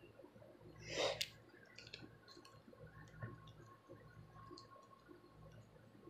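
Faint scratching and small clicks of long acrylic nails and a plastic rat-tail comb working along a scalp to lift dandruff flakes, with one louder scrape about a second in.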